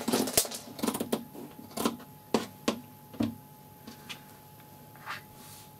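Orange-handled fabric scissors snipping through white furry fabric: a run of crisp, separate snips over the first three seconds or so.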